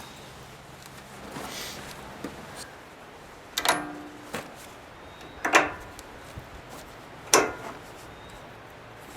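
Hydraulic quick-connect couplers being worked by hand, giving three sharp metallic clacks about two seconds apart, each with a short ring.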